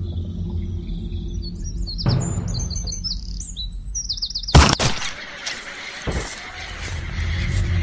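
Birds chirping over a steady low rumble, then a single loud gunshot about halfway through, followed by a weaker thud a second and a half later.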